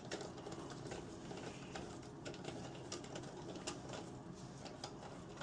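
Faint water running into a toilet tank through a newly installed fill valve, with scattered light plastic clicks as the float height is adjusted.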